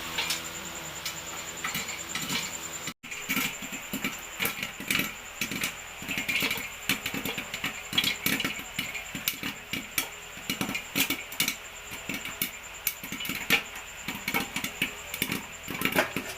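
Popcorn kernels popping inside a closed pressure cooker: irregular sharp pops and rattles, several a second, as the corn pops against the cooker's metal walls and lid.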